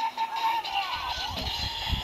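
DX Revice Driver toy belt playing its electronic music and sound effects from its small speaker, with the Mammoth Vistamp loaded: short warbling tones repeating over a beat.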